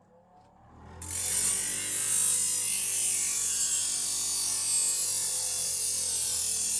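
Power grinder sharpening a dull blade, its wheel grinding steadily against the metal. The grinding hiss comes in suddenly about a second in and runs on without a break.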